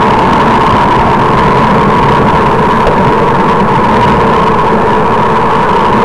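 Wind rushing over the microphone of a camera on a moving road bike, with road noise and a steady high hum.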